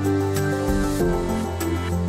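Background music: soft new-age style track with sustained notes and a light steady beat.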